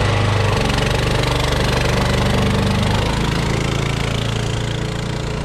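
Walk-behind-tractor engine on a belt-driven Muravey three-wheeled scooter running steadily in first gear, with a low pulsing beat, as the scooter pulls away; it grows a little quieter toward the end.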